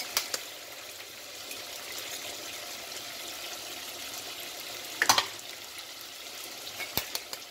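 Steady sizzle of food frying in a pan of hot oil. A few sharp knocks come just after the start and a louder clatter about five seconds in, as eggs are cracked into a pot of vegetables.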